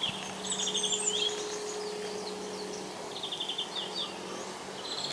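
Small birds singing in short, rapid chirping trills, heard several times, over the lingering hum of a church bell that fades away about three seconds in.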